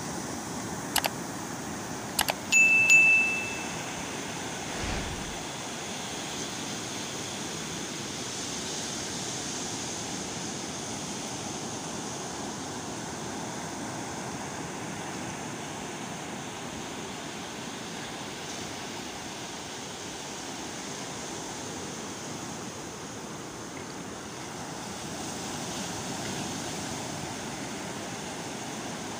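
A few sharp clicks in the first two and a half seconds, then a short bright ding, the loudest sound, from a subscribe-button animation. Under it and afterwards, a steady wash of sea surf that swells and eases slightly.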